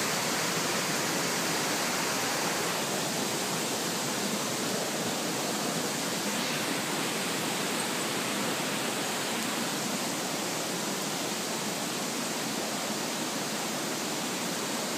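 Steady, even rush of falling water, a constant hiss with no breaks.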